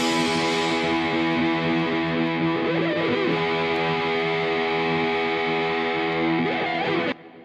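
Background music: one chord held steadily, cutting off abruptly near the end and leaving a short fading tail.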